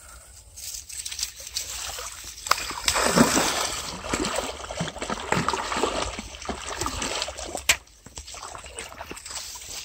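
Heavy splashing and sloshing of pond water as a hooked fish or turtle thrashes at the surface, in irregular surges that are loudest about three seconds in and die away sharply near the end.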